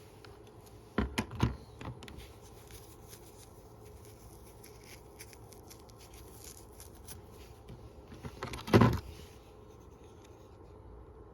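Handling of a Leatherman Wave multitool and its small parts: faint scattered clicks, a quick cluster of knocks about a second in, and one louder knock at about nine seconds.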